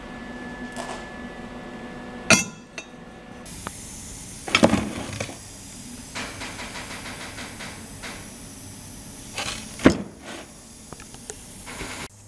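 Metal parts being handled on a shop workbench: a few sharp metal knocks and clinks, the loudest about two seconds in, near five seconds and near ten seconds, over a steady hiss.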